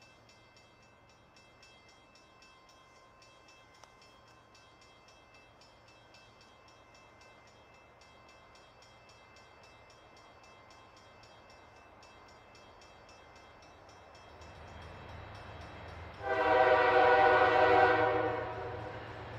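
GE Evolution-series diesel locomotive pulling a loaded coal train, faint and distant at first, its low engine rumble growing as it approaches. Near the end it sounds one long horn blast of about two seconds, a chord of several tones, and the engine rumble continues after it.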